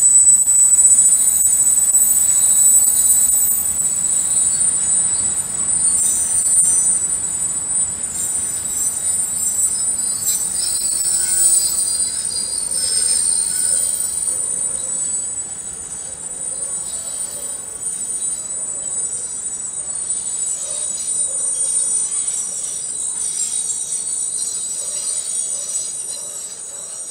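Container freight wagons rolling past on a railway line, with a steady high-pitched squeal over the rumble of the wheels; the sound grows quieter over the second half.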